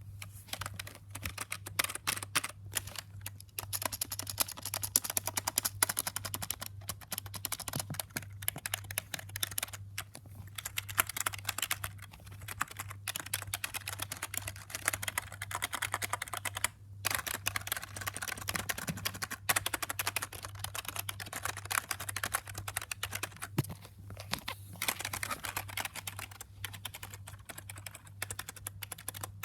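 Fast, continuous typing on a computer keyboard, a dense run of key clicks with a few brief pauses, over a steady low hum.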